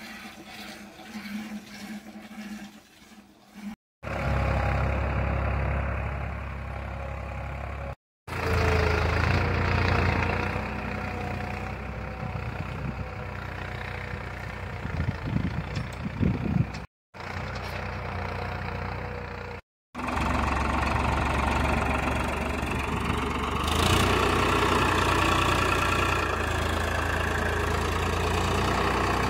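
Tractor engine running steadily at a low rumble, broken off several times by abrupt cuts.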